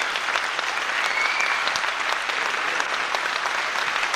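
Theatre audience applauding steadily, with a few whistles in the first second and a half.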